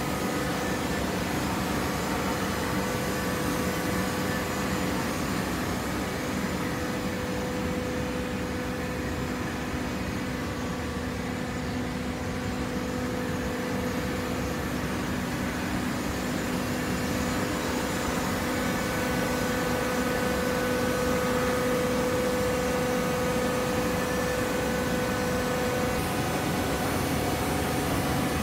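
Automatic horizontal baler and its plant machinery running: a steady mechanical hum with a steady mid-pitched whine that grows a little louder past the middle and eases near the end.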